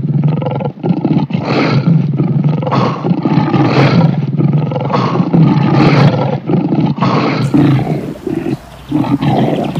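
Lions roaring over and over, the roars overlapping, easing off into quieter sounds after about seven and a half seconds.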